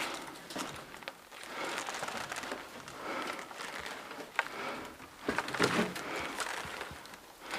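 Rustling and scuffing of clothing and gear close to the microphone, with a few sharp clicks, the loudest about two thirds of the way through.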